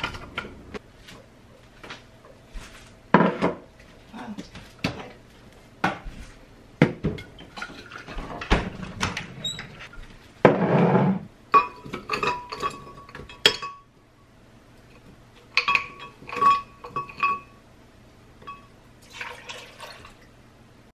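Smoothie ingredients going into a glass blender jar: a string of knocks and clinks as bottles, tubs and a metal measuring cup are handled and tapped against the glass, some clinks ringing on briefly. A short pour of juice about ten seconds in.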